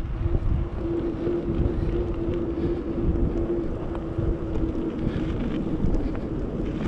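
Wind buffeting the microphone of a handlebar-mounted camera on a moving mountain bike, over a low rumble of tyres rolling on a tarmac path. A steady hum comes in about a second in and fades out around the five-second mark.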